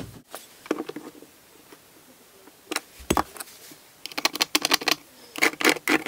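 Handling noise of a blue plastic remodel electrical box held against drywall: taps and clicks, a dull knock about halfway through, then quick runs of scratching strokes as a pencil traces the box's outline on the wall.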